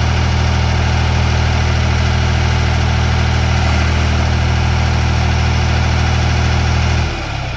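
John Deere 830B loader/backhoe's diesel engine running steadily, now that the faulty trigger wire to its fuel shutdown solenoid has been replaced. About seven seconds in, the engine speed drops and it settles to a lower, quieter idle.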